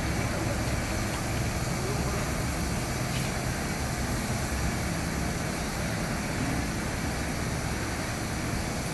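Machinery of a honeycomb cooling pad production line running steadily: a constant low hum under an even hiss.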